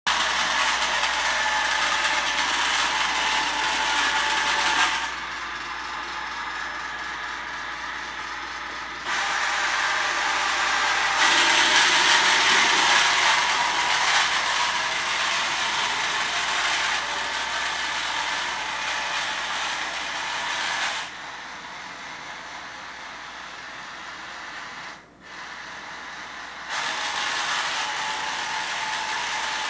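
Small electric gear motors of an Arduino-controlled rover whirring and grinding as it drives itself around. The whir steps down and back up in level several times and cuts out briefly about twenty-five seconds in.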